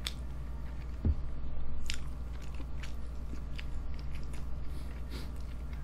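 Close-miked chewing and biting of a mouthful of fried chicken and rice, with scattered sharp wet mouth clicks and a low thump about a second in, over a steady low hum.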